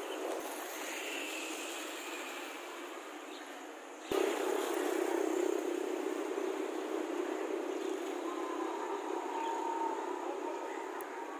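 Steady outdoor street ambience, a featureless rushing background noise. It jumps louder with a sharp click about four seconds in.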